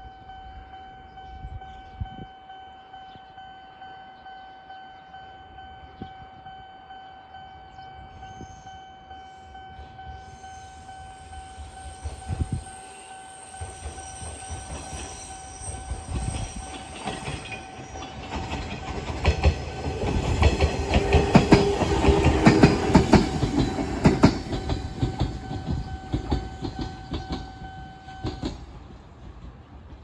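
Japanese level-crossing warning bell ringing steadily as an Echizen Railway train passes. The train's rumble builds, with wheels clacking rapidly over the rail joints, and is loudest about two-thirds of the way in before fading. The bell stops shortly before the end.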